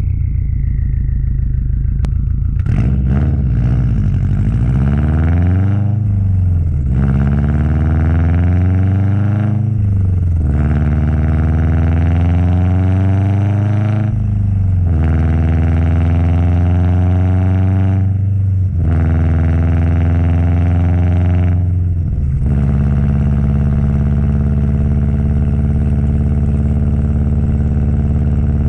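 Subaru WRX STi's turbocharged flat-four engine accelerating hard through the gears: the engine pitch climbs, drops at each upshift about every four seconds, five times, then settles into a steady cruise for the last several seconds.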